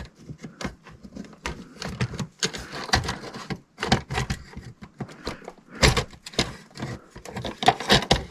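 Tools and small metal parts being handled and set down on a workbench: a string of knocks, clinks and clatter, loudest about six seconds in.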